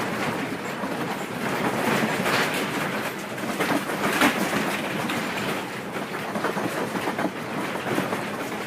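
Earthquake shaking: a continuous rumble with dense rattling and knocking of shaken objects, with a few louder knocks about two and four seconds in.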